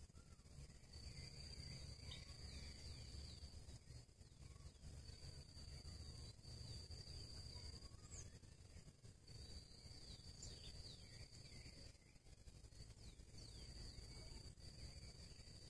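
Faint, high-pitched insect trill in long stretches of a few seconds each with short breaks, with a few faint short bird chirps over a low background rumble.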